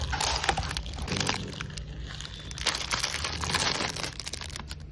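Packaging crinkling and crackling as it is handled and opened, in irregular rustles with sharp clicks, over a steady low hum.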